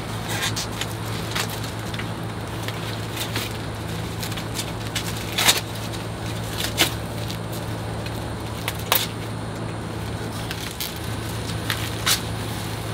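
White foam packing sheets and plastic wrapping crackling and rustling as they are pulled off a new e-bike, with scattered sharp crinkles, the loudest about five and nine seconds in, over a steady low hum.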